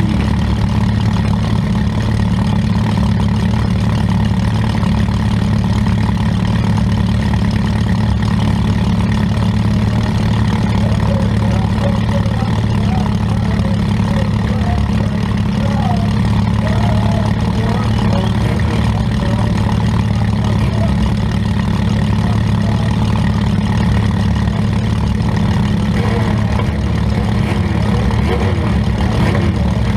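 Demolition-derby compact car's engine idling steadily, heard from inside its stripped-out cabin.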